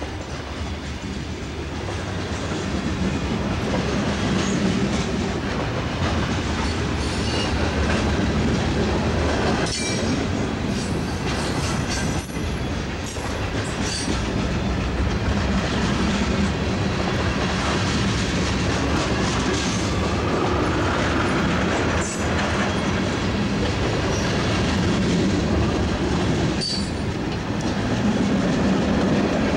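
Freight cars of a long mixed freight train (covered hoppers, tank cars and boxcars) rolling steadily past, a continuous rumble and clatter of steel wheels on the rails. A few brief high squeals come through around the middle and again near the end.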